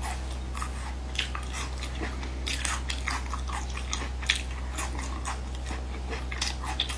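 Close-miked biting and chewing of seasoned cow-skin strips: an irregular run of short, crisp mouth clicks. A steady low hum runs underneath.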